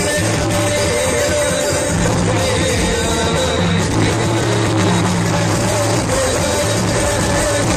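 Loud devotional song (bhajan) with a singer over a steady bass beat, played through PA loudspeakers.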